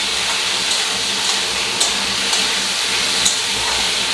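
Kitchen chimney (range hood) fan running with a steady hiss, while a metal spatula clicks and scrapes against a pan of frying potatoes several times.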